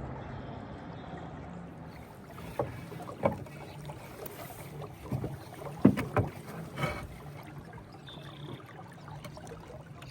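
Paddling a small boat on a lake: a steady wash of water and wind, with several sharp knocks and splashes from the paddles, about half a dozen spread over a few seconds in the middle.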